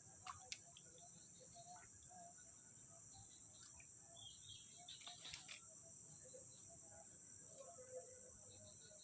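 Faint early-morning outdoor ambience: scattered birds chirping over a steady high insect drone. There are two short clicks about half a second in.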